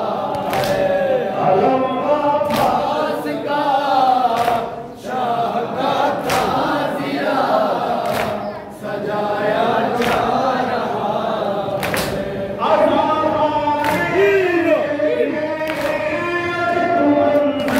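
Shia noha chanted by a male reciter through a microphone, with a crowd of men and boys singing along in unison. Sharp chest-beating slaps (matam) come in time with the chant about every one to two seconds.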